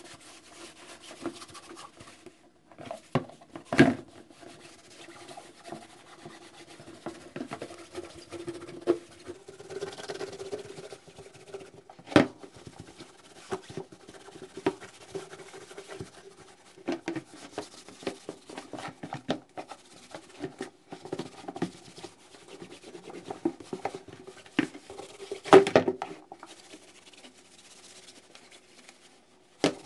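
A wet cloth scrubbing a yellowed plastic Mitsubishi coolant reservoir by hand in a plastic basin: irregular rubbing and scraping, with a few louder knocks.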